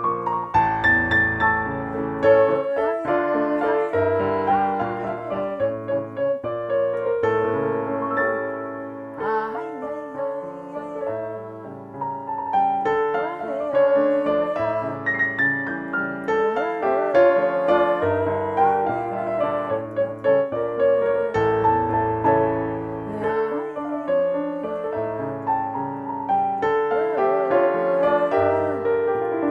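An electric keyboard plays a lively, upbeat Hasidic nigun: a melody over chords, with a bass line, and the notes change quickly.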